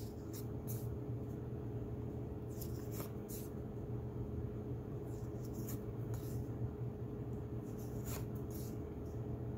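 Board-game cards being slid off a hand-held stack one at a time, making several short, soft papery swishes at irregular intervals over a steady low room hum.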